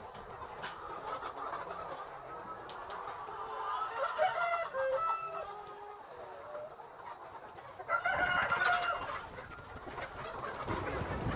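Chickens clucking, with a rooster crowing twice, about four and eight seconds in.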